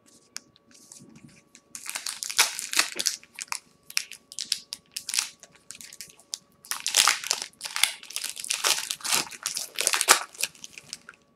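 Wrapper of a baseball card pack crinkling as it is torn open and handled, in two main stretches of crackling, about two seconds in and again from about seven seconds in.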